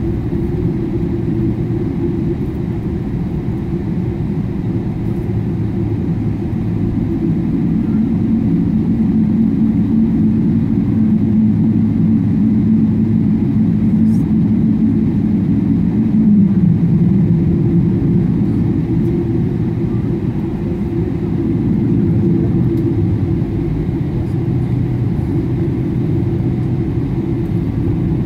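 Boeing 777-300ER's GE90-115B engines at taxi power, heard from inside the cabin over the wing as a steady low drone. A humming tone in the drone swells from about eight seconds in and slides lower a little past the middle.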